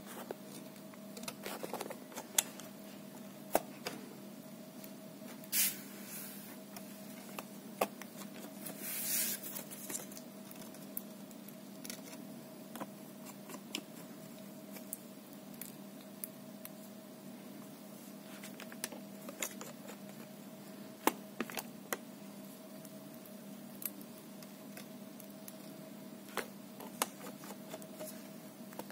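Scattered small clicks and ticks of a screwdriver and small screws on a laptop's metal palmrest frame, with two brief rustling hisses about 6 and 9 seconds in, over a steady hum.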